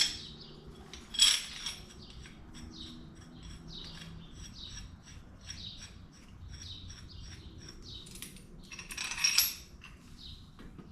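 Metal clinks and clanks of a spring compressor's hooks and jaws being set on a strut's coil spring, with two louder clanks about a second in and near the end. Rapid high chirps run on behind.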